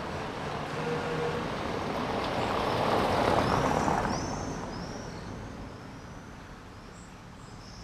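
A classic car driving past, its engine and tyres rising to a peak about three seconds in and then fading away.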